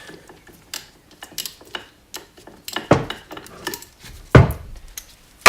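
Metal tools clinking and knocking against a BMW R80 fork leg while a bolt previously loosened is taken out: scattered light clinks, with louder knocks about three seconds in, about four and a half seconds in, and a sharp one at the very end.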